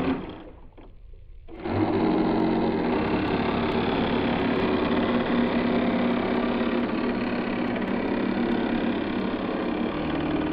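Small electric motors of a model boat whirring steadily, starting about a second and a half in.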